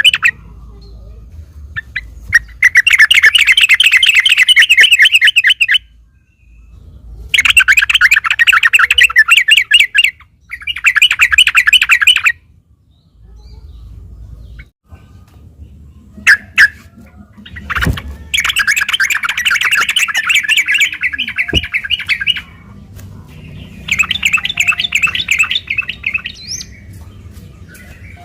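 Yellow-vented bulbul (trucukan) singing in loud bursts of rapid, chattering trilled song, the fast continuous 'ropel' style, about five phrases of two to four seconds each with short pauses between.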